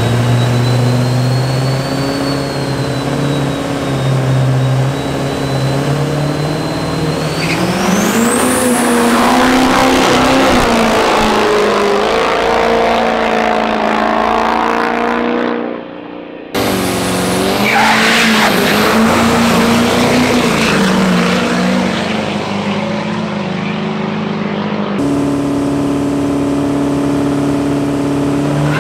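Turbocharged diesel drag-racing trucks running hard: engines revving with a high turbo whistle that climbs steeply about seven seconds in as a truck pulls away. The sound cuts abruptly to another run twice, about halfway and again near the end.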